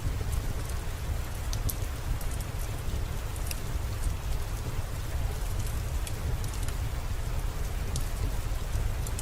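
Steady rain, with a deep low rumble under it and scattered sharp clicks.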